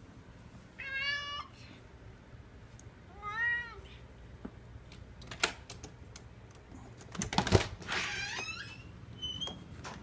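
Domestic cat meowing three times, short meows that rise and fall in pitch, with scattered sharp clicks and a loud knock just before the last meow.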